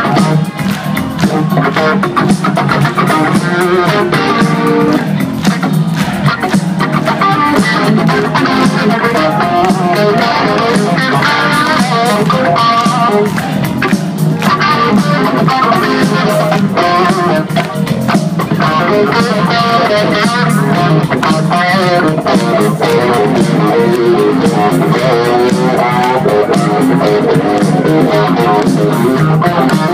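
Live rock band playing loudly, an electric guitar leading with wavering, bent notes over bass guitar and drums.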